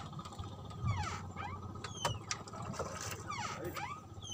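Fishing reel whirring and squealing while a big fish is played on the line, its pitch sweeping down and back up about once a second.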